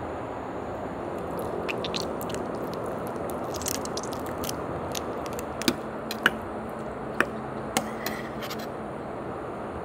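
Soy-marinated raw blue crab squeezed by hand, the shell crackling and the soft meat squishing out wetly, with a few sharp clicks in the middle, over a steady background hiss.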